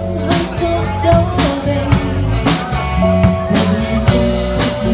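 Live pop band playing a slow song: regular drum kit hits over bass and sustained melodic notes.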